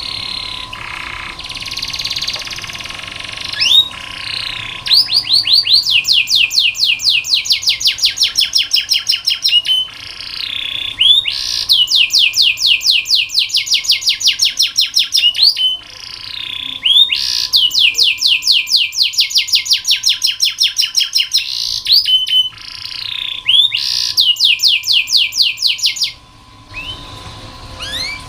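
Domestic canary singing in long, rapid, evenly repeated trills (rolls), four rolls of several seconds each broken by shorter whistled phrases.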